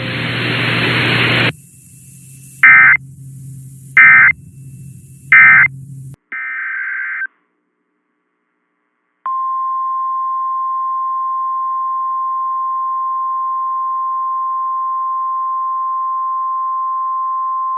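Radio hiss cuts off, then three short, loud screeching EAS/SAME digital data bursts sound about a second and a half apart, the end-of-message code that closes the alert, followed by a brief tone. After a pause of about two seconds, the NOAA Weather Radio warning alarm starts about nine seconds in and holds one steady pitch.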